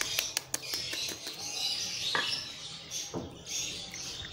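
A metal spoon tapping an egg to crack its shell: a quick run of light clicks, about five a second, for the first second or so, then a couple of louder knocks as the shell breaks. Birds chirp in the background.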